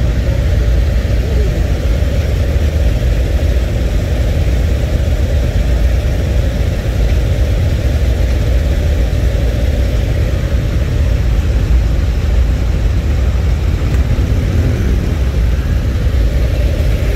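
A long line of police motorcycles idling together, a steady low rumble of many engines.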